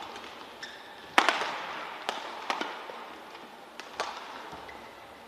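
Badminton racket strings striking a shuttlecock during a rally: a series of sharp smacks roughly a second apart, the loudest about a second in, each ringing briefly in the sports hall.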